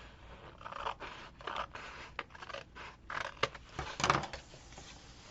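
Scissors cutting washi tape and paper: a series of short snips and rustles, the loudest a little past three and four seconds in.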